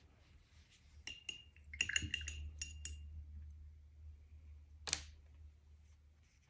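Light clinks and taps of a small hard object against glass or ceramic, several in quick succession about a second in, some with a brief high ringing after them, then one more tap near five seconds.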